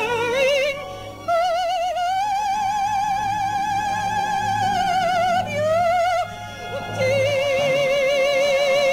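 Operatic soprano singing long held high notes with a wide vibrato, the last held note lower than the one before it.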